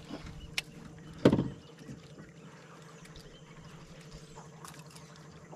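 A loud, dull thump against a fishing boat about a second in, preceded by a sharp click, over a steady low hum.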